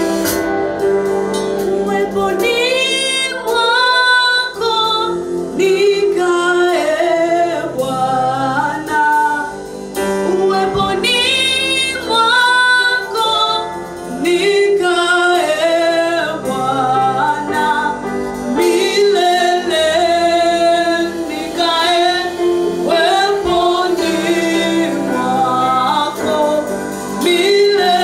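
Gospel worship song, singers with instrumental accompaniment, the voices holding long, gliding notes.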